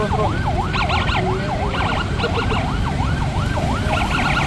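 Police siren yelping, its pitch sweeping up and down about three times a second, with short bursts of a faster, higher-pitched warble from a second siren, over the low rumble of traffic engines.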